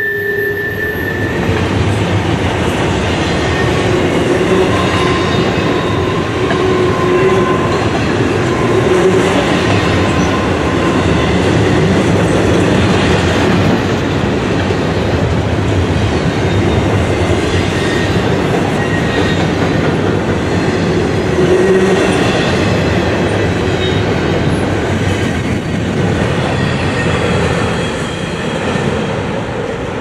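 Double-stack intermodal freight cars rolling past at close range: a steady rumble and clatter of steel wheels on rail. A high wheel squeal fades out in the first second or two, and fainter squeals come and go later.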